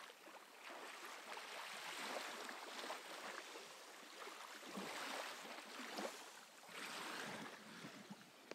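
Small waves lapping on a sandy beach from a calm sea, washing in and drawing back in soft surges every second or two.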